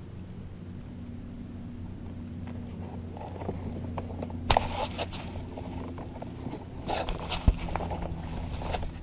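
Knocks, bumps and rustling of gear being handled in a kayak, with a sharp knock about four and a half seconds in and a heavier low thump about seven and a half seconds in.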